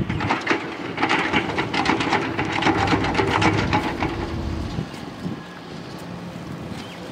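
Rapid crackling and rustling from handling a freshly caught fish and a woven plastic sack, as the fish is unhooked and dropped into the sack; it dies down about five seconds in.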